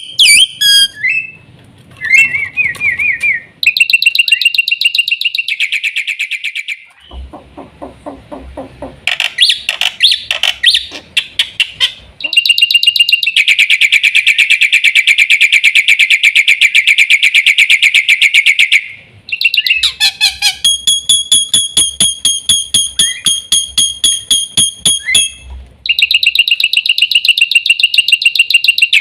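Jalak putih (black-winged myna) singing: long, loud runs of very rapid repeated rattling notes, each lasting several seconds with short pauses between, and a lower-pitched chattering passage about a quarter of the way in.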